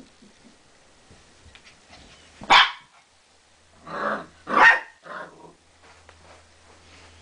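Pumi puppies barking in play: one sharp bark about two and a half seconds in, then three more in quick succession between four and five seconds in.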